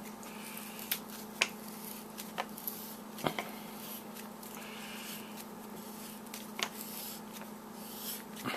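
Hands twisting the head off an aluminium Mag-Lite D-cell flashlight along its fine threads: scattered small clicks and soft rubbing of skin on metal. A steady low hum runs underneath.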